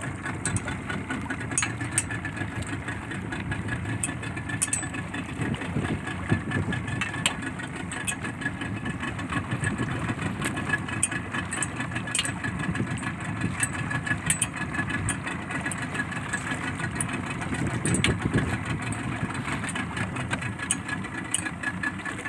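Fishing boat's engine idling steadily, with scattered sharp clicks over it.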